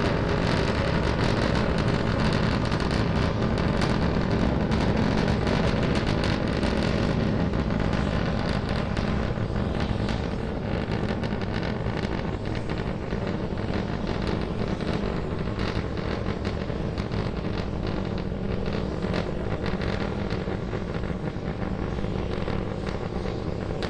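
Rumble of Starship SN10's three Raptor rocket engines firing during ascent: a steady deep roar full of crackle, easing a little about halfway through.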